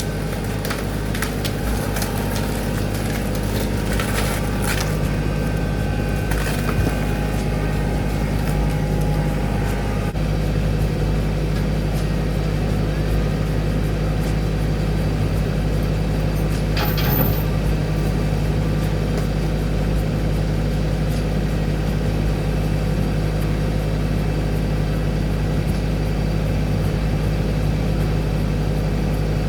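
Tractor engine running steadily, with a few sharp cracks and knocks in the first few seconds and one more later on.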